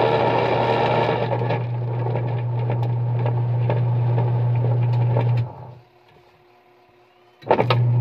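Top-load washing machine's pulsator and motor running with a steady low hum and scattered clicks. It stops about five and a half seconds in and starts again near the end. This is the abnormal noise of a damaged gear case.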